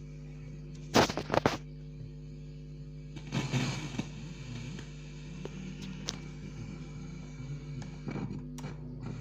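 An old Polytron radio cassette player being switched on and tested: a cluster of sharp clicks about a second in, a short burst of noise around three and a half seconds, and a few lighter clicks later, over a steady low hum.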